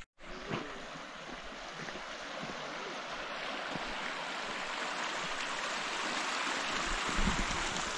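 Running water of a small stream, a steady rushing that grows gradually louder.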